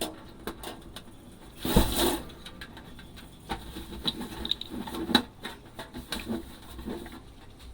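Scattered light clinks and knocks of dishes being handled at a sink, with one louder clatter about two seconds in.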